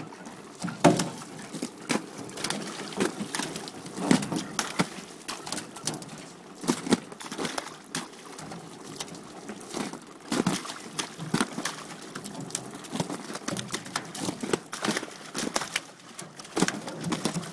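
Live carp flapping and slapping on the wet steel bed of a fish-transport truck as they are pushed off over the edge. Water is dripping and splashing, and irregular wet slaps and knocks run throughout.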